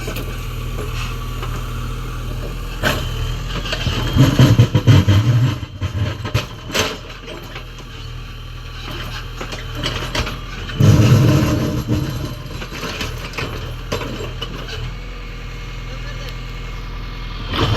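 JCB 3DX backhoe loader's diesel engine running steadily, rising twice under heavy load as the backhoe works, once about four seconds in and again around eleven seconds. Sharp knocks in between from the bucket on stone.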